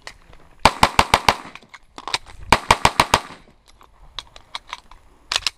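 Compensated race pistol fired in rapid strings: about six fast shots about a second in, another string of about six around two and a half seconds in, a few fainter cracks after that, and a quick pair of loud shots near the end.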